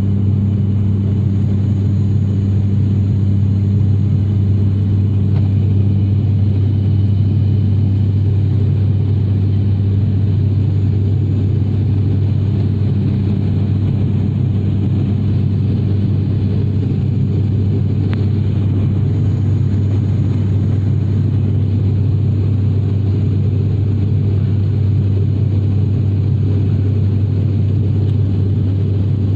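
Steady low drone of a propeller airliner's engines and propellers, running evenly without change.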